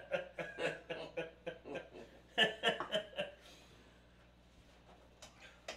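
Laughter: runs of short, evenly pulsed chuckles at the start and again about two and a half seconds in, followed by quiet with a few light clicks near the end.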